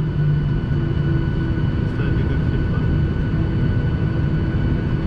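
Airliner engines running steadily before takeoff: a constant drone with a low hum and a fainter steady high whine.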